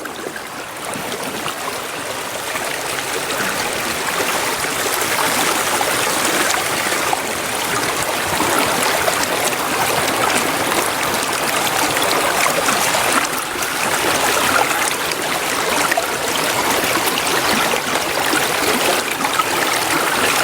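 Small stream of water running and trickling beneath an iced-over pool, a steady rush that grows a little louder over the first few seconds.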